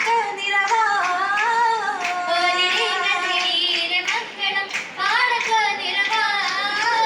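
A group of girls singing an Oppana song, a Mappila song, with regular hand clapping keeping the beat.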